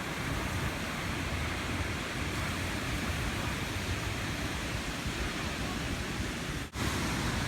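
Steady rushing noise of ocean surf and wind at the beach, strong in the lows, with a brief dropout near the end.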